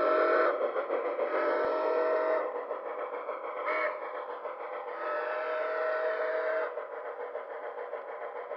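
Sound-equipped HO-scale model steam locomotive, Nickel Plate Road Berkshire 757, blowing its whistle in the grade-crossing pattern: long, long, short, long. Under the whistle runs the model's steady running noise.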